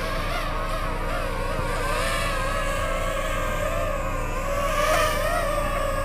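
DJI FPV drone's propellers whining, the pitch wavering up and down with the pilot's stick inputs as the drone is brought down to land.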